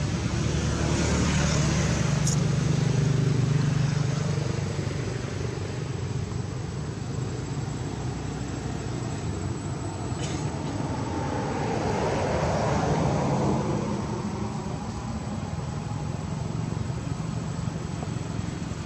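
Passing motor vehicles: a low engine hum swells over the first few seconds, and another vehicle comes up and goes past about twelve to fourteen seconds in.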